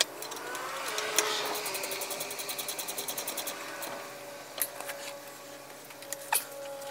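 Hand ratchet wrench clicking rapidly, about ten clicks a second, as it turns a bolt on a car's rear brake caliper, then a few single metallic clicks.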